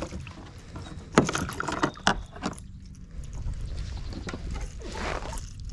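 A small bass thrashing and splashing at the water's surface beside a kayak, with a cluster of sharp splashes and knocks in the first couple of seconds, then softer water noise as the fish is lifted.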